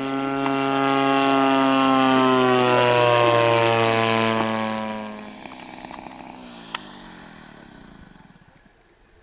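A radio-controlled model warbird's engine and propeller flying past. It is loud for about five seconds, then its pitch drops and it fades away into the distance.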